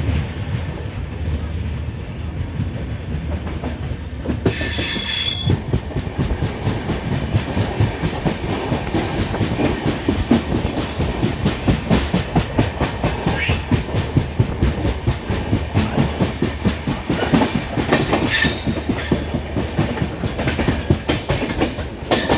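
Jan Shatabdi Express passenger coaches running over the rails, with a steady low rumble and wheels clattering over rail joints in a quick even rhythm that sets in about six seconds in. A brief high screech comes about five seconds in.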